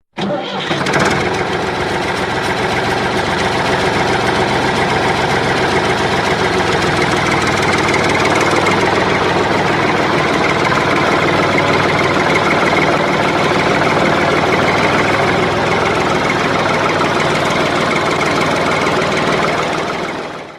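Motor of a DIY miniature tractor running steadily under power. It starts and cuts off abruptly.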